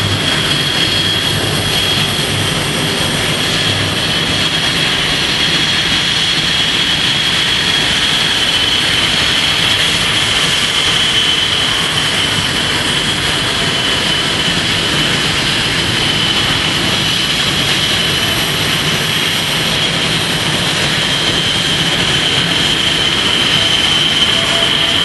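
Jet engines of Blue Angels F/A-18 Hornets running with a steady, loud, high-pitched whine over a constant roar.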